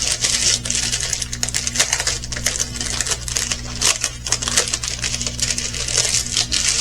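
Small resin diamond-painting drills clicking and rattling as they are put back into a small plastic bag by hand, in a quick irregular run of tiny clicks with plastic rustling.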